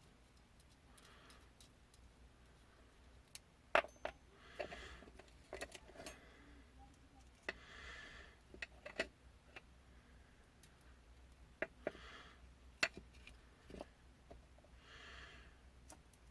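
Faint, scattered clicks and taps of small metal parts and hand tools being handled during a box mod switch repair. Soft hissing sounds of about a second each recur every few seconds.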